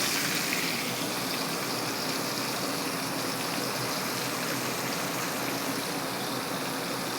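Flour-coated chicken skin deep-frying in hot oil: a steady sizzle.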